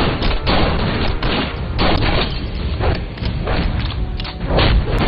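Gunfight sound effects from a film soundtrack: repeated gunshots in quick succession, about three a second, with booming impacts.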